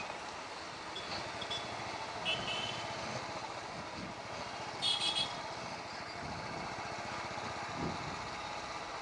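Steady motorcycle and street-traffic noise heard from a riding motorcycle, with brief vehicle horn beeps: short ones about one and two seconds in, and a louder double toot about five seconds in.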